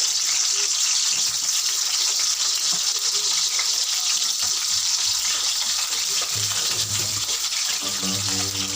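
Potatoes frying in hot oil in a small wok, a steady loud sizzle. Near the end a low steady hum joins it.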